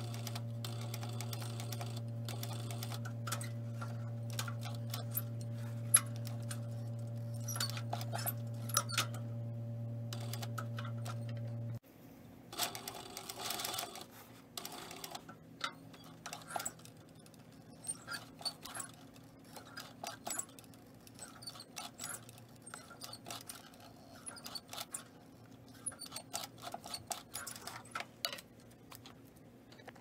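Industrial cylinder-bed sewing machine stitching a zipper into a leather bag: its motor hums steadily with scattered clicks, then cuts off suddenly a little under halfway through. After that come light clicks and rustling as the leather is handled at the machine.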